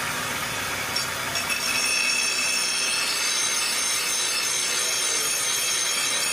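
A steel bar is ground on a belt-driven grinding wheel. The grinding is steady, with several high whining tones above it.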